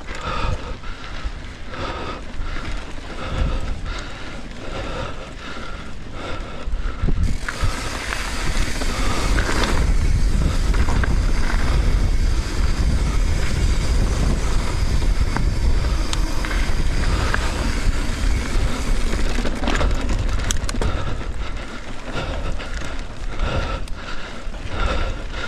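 Mountain bike rolling over a dirt trail, tyres on dirt with wind on the microphone. A softer stretch with a steady pattern repeating about twice a second gives way, about seven seconds in, to a louder, hissier rush that eases again about twenty-one seconds in.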